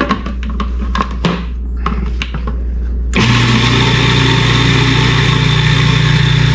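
A few light clicks and knocks, then about three seconds in a food processor motor switches on and runs steadily, blending garlic for toum (garlic sauce).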